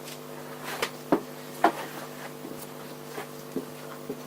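A few light clicks and knocks of tools and parts being handled, the loudest two a little over a second in, over a steady low hum.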